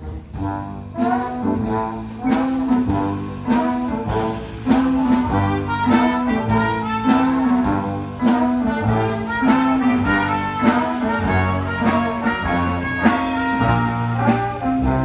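A symphonic wind band playing a lively, rhythmic piece live, with brass to the fore over a repeating bass line and percussion striking the beat; the full band comes in louder just after the start.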